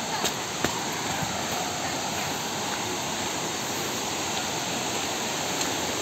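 Steady rushing of a waterfall and the stream below it, an even wash of falling water, with a couple of light clicks in the first second.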